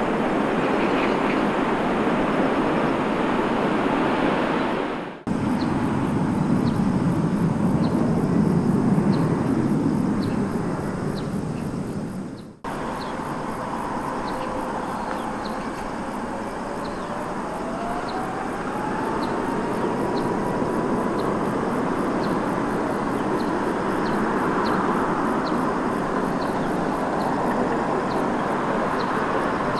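Jet airliner engines running loud and steady, in three pieces split by two abrupt cuts; in the last piece an engine whine rises in pitch and then holds.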